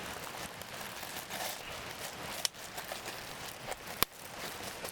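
Campfire crackling and hissing, with two sharp pops, the louder one about four seconds in.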